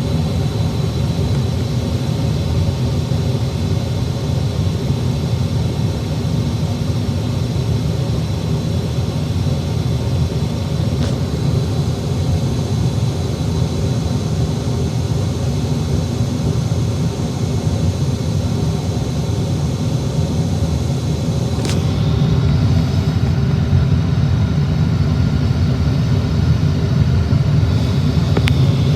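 Gas furnace running with its burner lit and blower going: a steady rumble with a hum. About three quarters through there is a click and the running sound rises a little, with a higher steady whine added.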